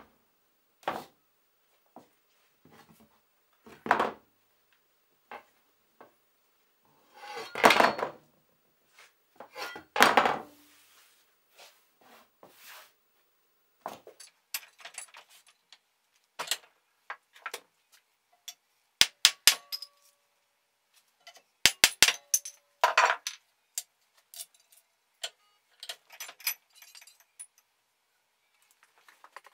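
An old draw knife and other metal pieces being handled, picked up and set down on a wooden work surface: irregular clanks, clinks and knocks, some ringing briefly, with two heavier thumps about eight and ten seconds in and a quick run of sharp clinks a little past the middle.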